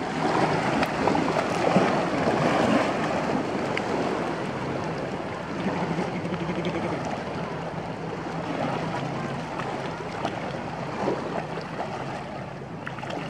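Shallow sea water washing and splashing as feet and a small dog's paws wade through it, louder over the first few seconds.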